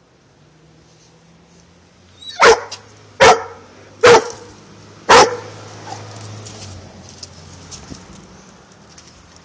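German Shorthaired Pointer barking at a cornered cat: four loud, sharp barks about a second apart, starting a couple of seconds in.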